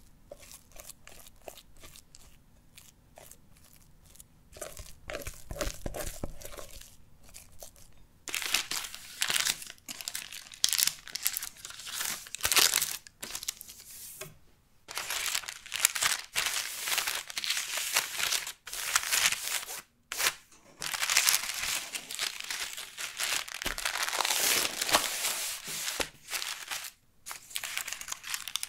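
A spatula softly working cream cheese filling in a glass bowl; then, about eight seconds in, loud crinkling and tearing of baking paper as it is handled and peeled off a baked sponge sheet, coming in runs with short pauses.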